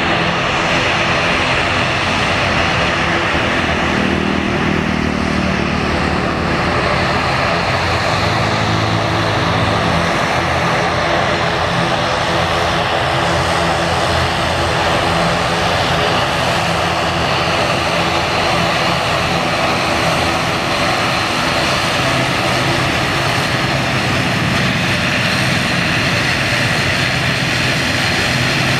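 Twin turboprop engines of an ATR 72-600 airliner running steadily at taxi power, a constant propeller drone with an even engine hum.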